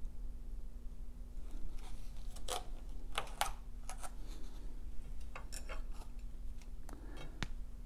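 Black plastic takeout bowl being set down and food handled on a table: a scatter of light clicks and taps over a steady low hum.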